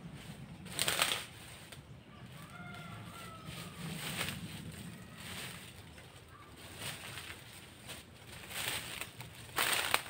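Leaves and branches rustling in several short bursts as the branches are handled, the loudest just before the end.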